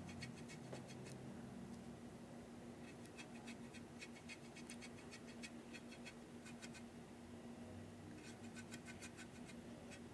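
Faint, rapid scratchy ticking of a small brush scrubbing weathering colour onto the ribbed plastic roof of a model boxcar, in several short bursts, over a steady low hum.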